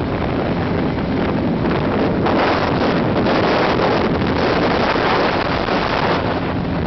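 Wind buffeting the microphone at road speed over the steady running of a 1979 Honda CB400T's parallel-twin engine. The wind grows louder a little over two seconds in and eases again near the end.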